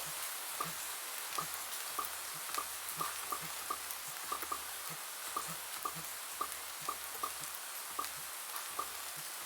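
Bubble-pop sound effects, short sharp pops at an uneven pace of about two a second, layered over the steady hiss of rain.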